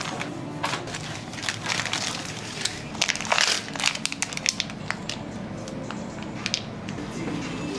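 Plastic food packaging being torn open and crinkled by hand, a run of sharp crackles that is loudest and densest about three to four and a half seconds in.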